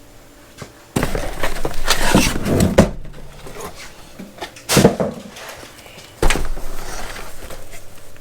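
Cardboard packaging being handled and unpacked: about two seconds of rustling and scraping, then a sharp knock near the middle and another thud a second and a half later.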